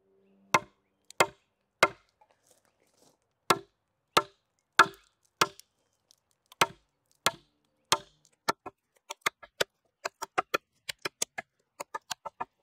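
Hand-forged bearded axe chopping into wood: a series of sharp blows, about one every half second at first, quickening to about three a second in the second half.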